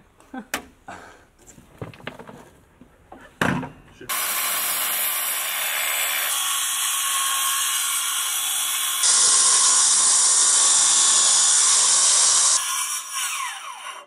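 Corded circular saw cutting through a sheet of plywood: after a few light knocks, a loud steady cut for about eight seconds, then the blade winds down with a falling whine.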